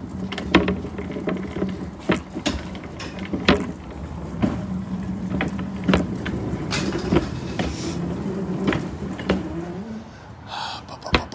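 Wheeled cart rolling and rattling over pavement, with many irregular knocks and clicks over a steady low hum.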